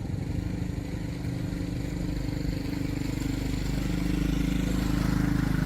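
Small motorcycle engine running with a fast, even exhaust pulse, growing a little louder in the second half.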